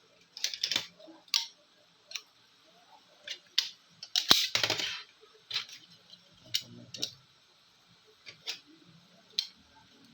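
Irregular sharp clicks and light taps of small tools and parts being handled during an iPad repair, with a longer, louder clatter about four seconds in.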